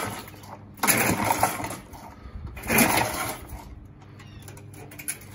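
1978 Briggs & Stratton edger engine being pull-started by its recoil starter cord: the end of one pull, then two more pulls about two seconds apart, each a burst of about a second. The engine turns over but does not catch.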